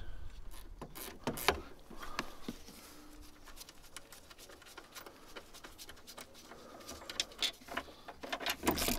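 Ratchet wrench and 13 mm socket on the front strut top-mount nuts: scattered metal clicks and clinks, more frequent near the end as the ratchet starts working a nut.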